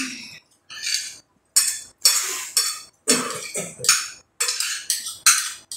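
Cutlery knocking and scraping against plates at a meal, a quick series of sharp clinks and scrapes.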